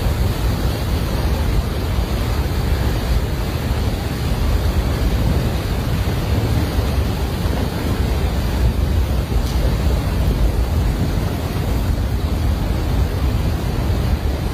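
Snow avalanche of snow and ice pouring past, a loud, steady rushing noise with heavy low rumble and wind buffeting the microphone.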